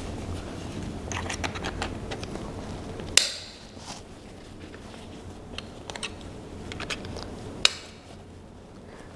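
Rustling and clicking of a dog harness's straps and buckles being fastened on a husky, with one sharp click about three seconds in and another near the end.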